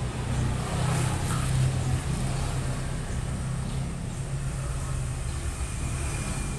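A motor vehicle engine running steadily in the background, a low rumble, with a few light clicks about a second in.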